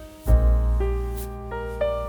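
Background music led by piano, with a deep bass chord struck about a quarter second in and further notes near the end.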